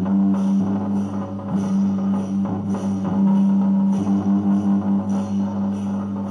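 Traditional Chinese ensemble music: a loud held low tone with a steady beat of drums and hand percussion.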